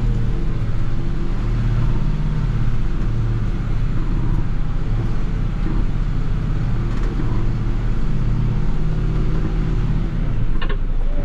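Mercedes-Benz Unimog's diesel engine running steadily while the truck is driven over an off-road track, heard from inside the cab as a low, even hum, with a few faint knocks.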